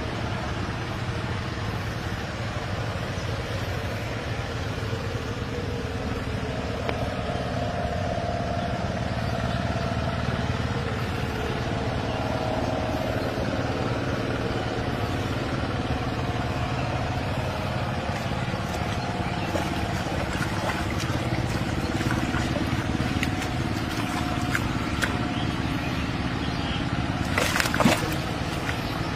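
A steady low rumble throughout, with a sharp splash of water near the end as hands slap and churn the shallow pond water.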